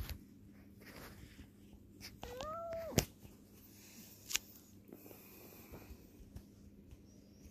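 Cat giving one short meow a little over two seconds in, rising and then levelling off, amid small rustles and clicks. A sharp click just after the meow is the loudest sound.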